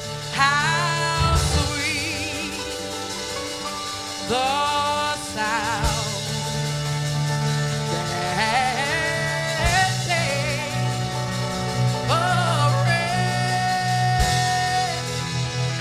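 Gospel singing with band accompaniment: a lead voice sings long, gliding runs with vibrato over held low bass notes, with a few sharp drum hits.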